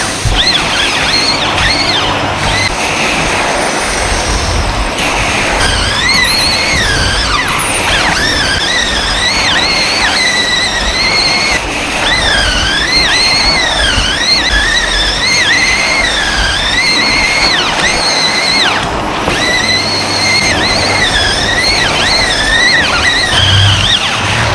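Vacuum cleaner running, its high motor whine wavering up and down in pitch as it works across the floor.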